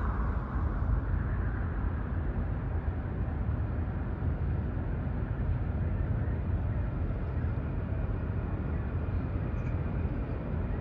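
Steady low rumble of a Valley Metro light rail train moving slowly along street tracks, mixed with street traffic.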